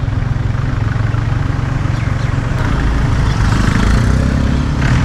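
Honda Activa scooter running along a road, its engine hum under heavy low wind-and-road rumble. A steadier engine note comes through about three seconds in.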